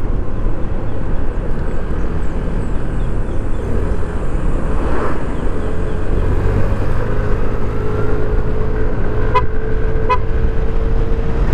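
Motor scooter ridden in highway traffic: a steady rumble of engine and road noise, with a steady drone coming in over the second half. Two short horn beeps sound near the end, ahead of an overtake.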